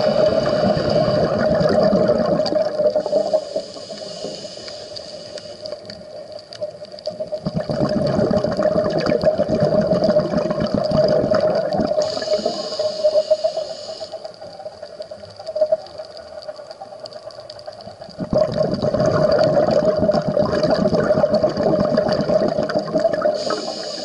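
A scuba diver breathing through a regulator, heard underwater. Long bubbling rushes of exhaled air, three of them, alternate with shorter hissing inhalations, over a steady hum.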